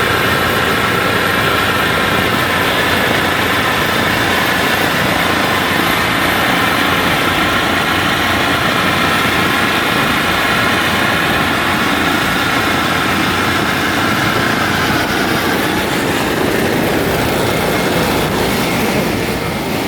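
Kubota WD102PRO rice combine harvester's diesel engine running steadily as the machine travels along a road, with a steady whine over the engine noise. It eases off slightly near the end.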